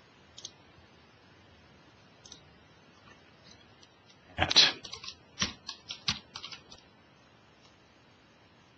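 Computer keyboard typing: a quick run of about a dozen keystrokes starting about four and a half seconds in and lasting about two seconds, with a few single faint clicks before it.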